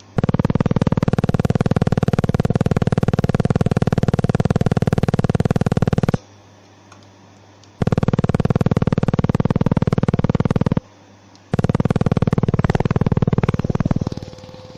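Pulsed laser welding machine firing: a loud, rapid buzzing pulse train in three runs of about six, three and two and a half seconds, with short pauses between. The last run fades out near the end.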